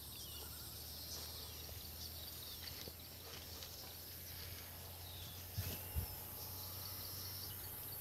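Quiet outdoor ambience: a steady faint high hiss with scattered faint bird or insect chirps, and two soft knocks about five and a half and six seconds in.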